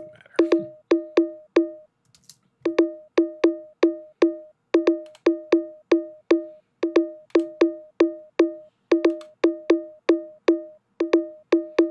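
A cowbell playing on its own, a quick repeating pattern of sharp two-tone hits, about four a second. There is a brief break about two seconds in.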